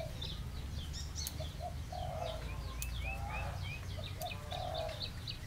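Outdoor birdsong: many small birds chirping and a dove cooing in repeated short phrases. About three sharp clicks come through, the snips of small bonsai scissors cutting fine twigs.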